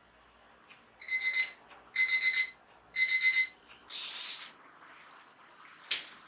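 Alarm clock beeping: three short bursts of rapid high-pitched beeps, about one a second, the wake-up alarm going off. A softer, noisier sound follows about four seconds in, and a sharp click near the end.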